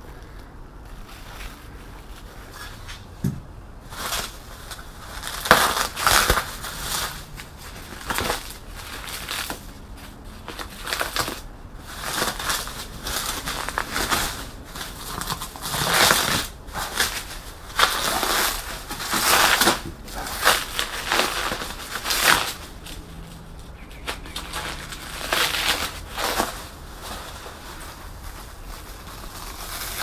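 Bubble wrap and plastic stretch film being pulled off and crumpled by hand, a run of uneven rustles starting about four seconds in.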